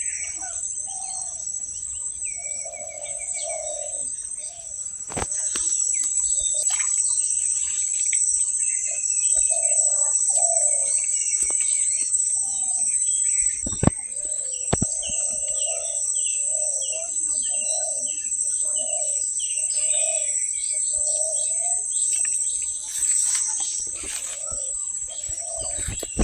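Outdoor chorus of insects, crickets or cicadas, buzzing steadily and high-pitched, with birds chirping in repeated short phrases over it. Through the middle comes a lower call repeated about once a second, and there are a few sharp knocks, around five seconds in and twice near the middle.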